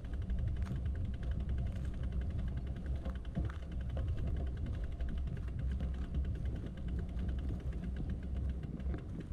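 Riding a bicycle: a low rumble of wind and road noise with a rapid, even ticking throughout.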